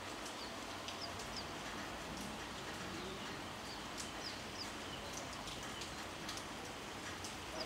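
Small birds chirping briefly now and then over a steady outdoor hiss, with a few faint clicks.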